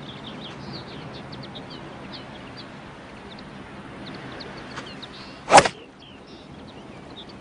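A golf iron swung hard and striking the ball: one sharp swish and hit about five and a half seconds in, over birds chirping.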